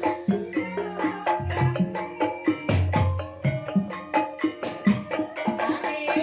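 Banyumasan Javanese gending music in ebeg style: struck tuned percussion playing interlocking notes over low hand-drum strokes, in a steady rhythm.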